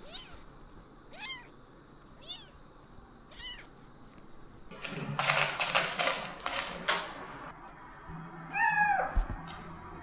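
Kitten mewing: four short, high-pitched mews about a second apart, then about two seconds of scratchy rustling as it digs in pellet cat litter in a cardboard box, then one longer mew falling in pitch near the end, followed by a brief low thump.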